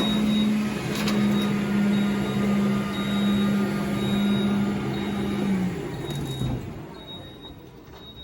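Battery-powered floor-cleaning machine running on test with its exhaust hose newly replaced: a steady motor hum with a wide hiss, which drops in pitch and then stops about six and a half seconds in.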